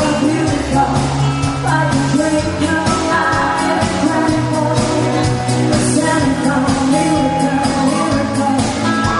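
A band playing a song with a lead singer, over a bass line and a steady drum beat.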